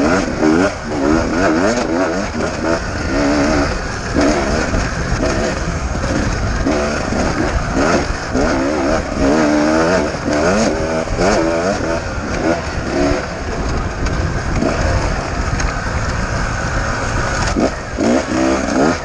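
Beta 250RR two-stroke enduro motorcycle engine at race pace, its pitch rising and falling over and over as the throttle is worked and gears are shifted, over a steady low rumble of wind and ground. A few sharp knocks come near the end.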